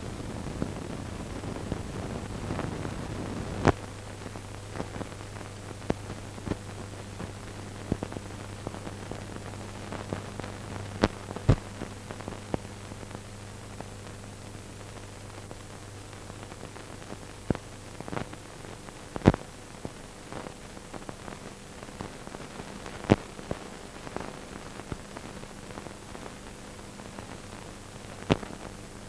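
Steady hiss over a low hum, broken by irregular sharp clicks and pops, a few of them much louder than the rest. It is the surface noise of an old film soundtrack transfer.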